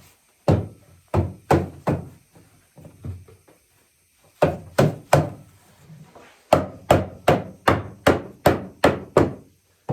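Hammering on the wooden parts of a walnut rocking chair: about fifteen sharp blows in three runs, the last a steady run of about eight at two or three a second.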